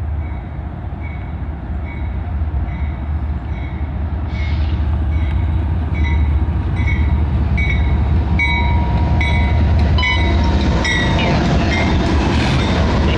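GE diesel-electric locomotives hauling an intermodal freight train, their engines rumbling louder as they approach and pass close by. A bell rings steadily about twice a second through most of it.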